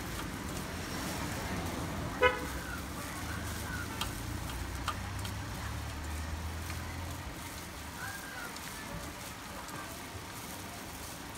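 Street traffic with one short, loud vehicle horn toot about two seconds in, over a steady low engine hum.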